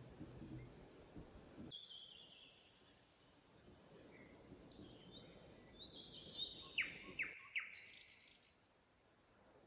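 Wild birds chirping and singing in forest. There is a short call about two seconds in, then a quick run of high, falling chirps in the second half, over faint low background noise.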